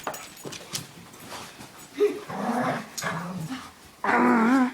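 Dog vocalizing during rough play: low growling sounds from about two seconds in, then a loud, wavering whine near the end.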